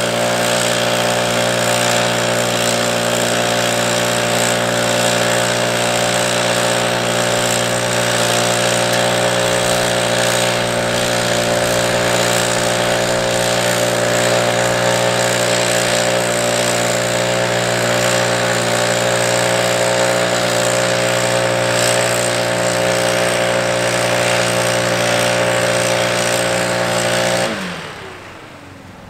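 Small petrol engine running at a steady speed, then switched off about 27 seconds in, its pitch falling as it winds down to a stop.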